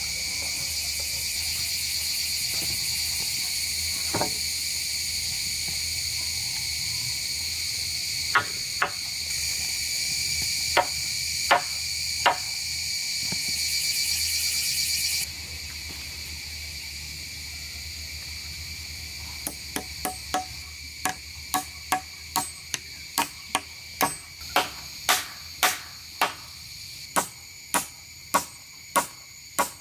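Steady high chirping of crickets or other insects, which cuts off suddenly about halfway through. A few scattered knocks come first, then from about two-thirds of the way in a steady run of hand-tool strikes, about two a second.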